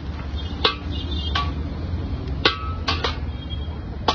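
Steel ladle clanking against an iron wok while fried rice is stirred and scooped out: about five sharp metallic strikes at uneven intervals over a steady low rumble.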